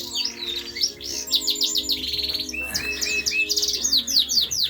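Caged canaries and finches chirping and twittering together: many quick, high, downward-sweeping chirps, with a short run of repeated notes about halfway through.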